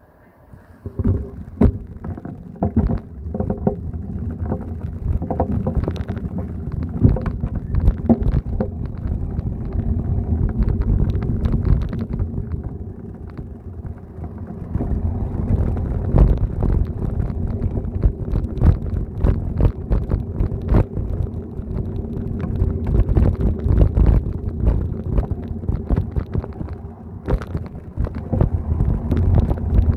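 Wind buffeting the microphone of a phone filming from a moving bicycle, a continuous low rumble that starts about a second in, with frequent knocks and rattles from the ride.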